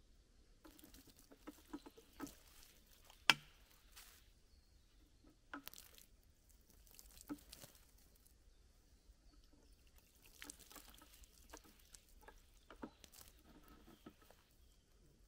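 Light clicks, knocks and rustles of a green plastic hanging washstand being handled on a wooden post, with one sharp click about three seconds in.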